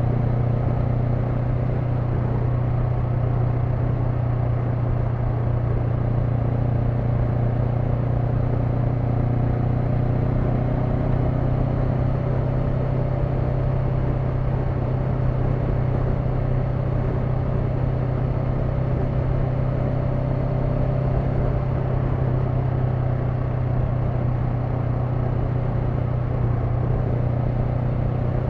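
Honda NX500's parallel-twin engine and exhaust running at a steady, unchanging pitch as the motorcycle cruises.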